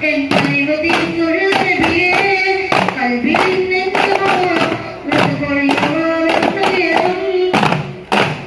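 Duff muttu: a group singing a song in unison over a steady beat of hand-struck daf frame drums. Near the end the singing stops and a few drum strokes carry on.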